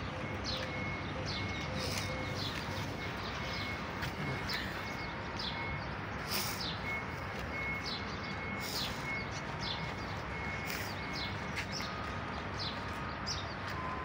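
Small birds chirping: many short, falling chirps, several a second, over a steady background hum.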